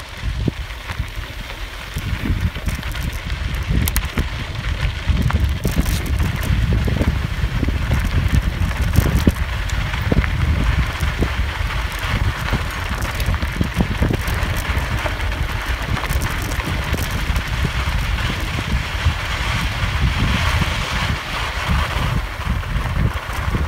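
Wind buffeting the microphone of a phone carried on a moving bicycle, over the crunch of tyres rolling on a gravel dirt track. Scattered knocks and rattles as the bike goes over bumps.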